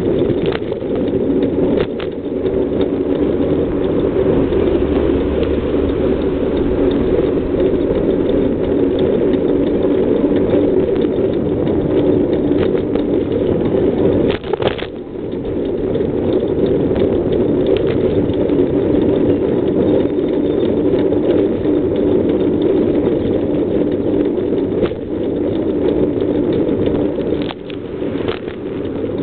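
Steady, loud rumbling noise of riding a bicycle along a road: wind and passing traffic on the camera's microphone, dipping briefly twice.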